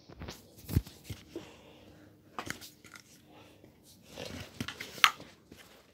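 Handling noise from a handheld phone being moved about: scattered light knocks and rustles, the clearest knocks just under a second in, about two and a half seconds in and about five seconds in.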